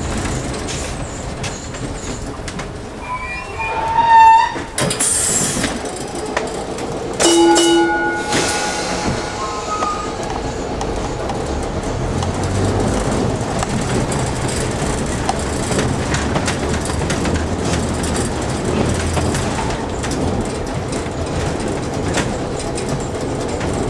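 Peter Witt streetcar running along the track, heard from the operator's cab: a steady rumble of steel wheels on rail. Two short, loud ringing squeals come about four and seven seconds in, and the low rumble grows from about halfway through.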